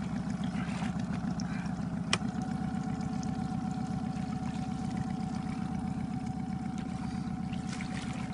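Outboard motor running steadily at low speed, with one sharp click about two seconds in.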